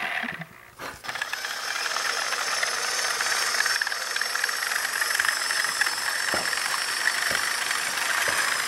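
HO scale model train running past on the track: a steady whir of the locomotive motors and wheels on the rails, with a few faint clicks. The sound drops out briefly about half a second in.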